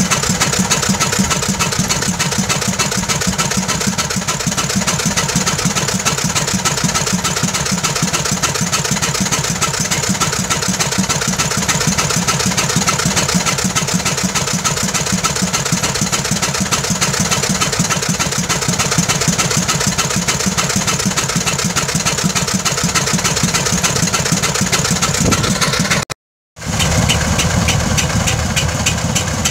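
1907 Waterous fire engine's 16 hp gasoline engine running steadily under load, driving its pump as it throws water, with a fast, even beat. The sound breaks off for a moment about 26 seconds in, then carries on.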